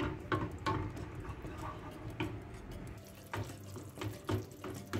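Wooden spoon stirring thick tomato sauce in a frying pan, with irregular soft taps and wet squelches, roughly two a second.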